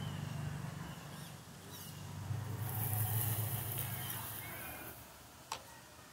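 Electric motor and geared drivetrain of a Vaterra RC rock crawler running, louder in the middle and stopping about five seconds in. A single sharp click follows just after.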